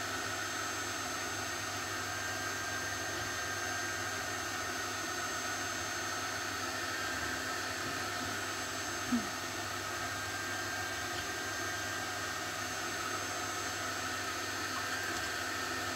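Steady background hiss with a faint low hum, unchanging throughout; one brief short blip about nine seconds in.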